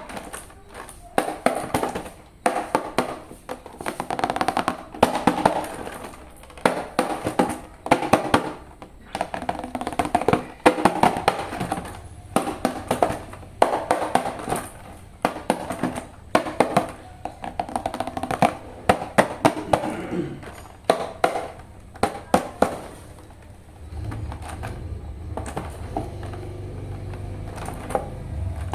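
Background music with many sharp clicks and knocks through it; a low steady hum comes in near the end.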